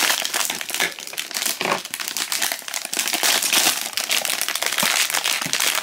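Thin foil blind-box bag crinkling continuously as hands crumple it and tear it open.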